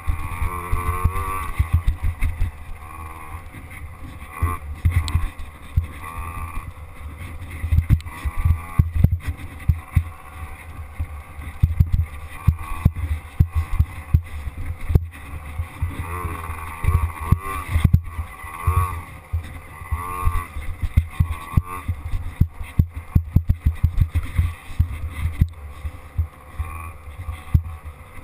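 Small youth dirt bike engine running on a bumpy sand trail, its pitch rising and falling as the throttle is opened and backed off, with wind buffeting the microphone and knocks from the bumps.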